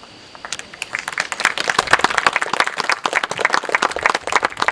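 Audience applauding: many people clapping, starting about half a second in and building up.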